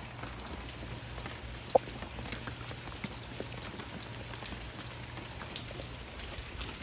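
Steady rain falling, with scattered raindrop ticks, a low steady hum underneath, and one sharp louder tick a little under two seconds in.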